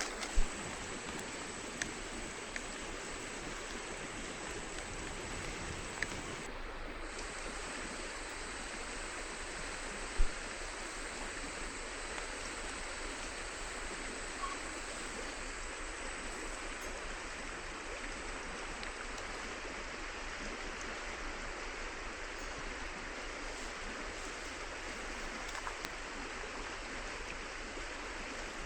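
River water flowing and rushing steadily, with two short knocks, one about half a second in and one about ten seconds in.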